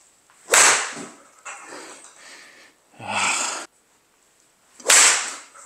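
Two golf shots with an iron off a hitting mat into a practice net: each is a sharp strike with a short decaying tail, the first about half a second in and the second near the end. A short breathy sound comes between them.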